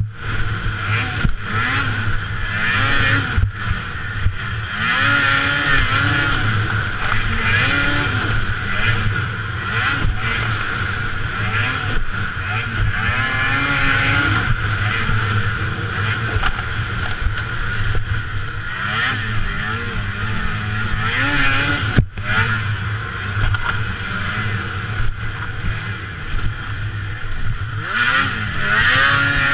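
Racing snowmobile's engine revving hard, its pitch climbing and falling over and over as the throttle is worked through the course, over a steady high whine.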